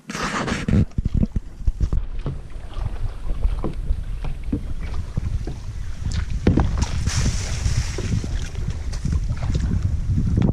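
Wind rumbling on the microphone of a camera mounted on a kayak's bow, with scattered small splashes and knocks from paddling and water against the hull. A louder rush of noise in the first second.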